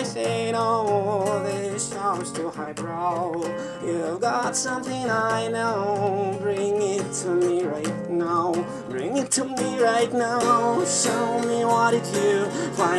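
A song: acoustic guitar strummed under a voice singing long notes with a wavering vibrato.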